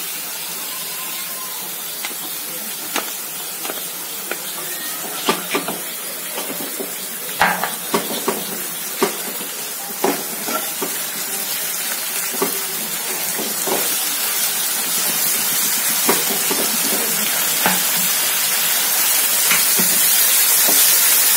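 Spice masala sizzling in hot oil in a frying pan while a wooden spatula stirs it, with scattered knocks and scrapes of the spatula against the pan. The sizzle grows slowly louder toward the end.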